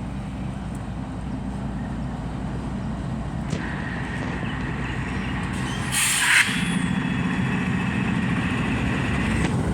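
Freight train's diesel locomotives rumbling past at close range, a steady low drone throughout. A high steady whine joins about three and a half seconds in, and a short loud hiss cuts in about six seconds in.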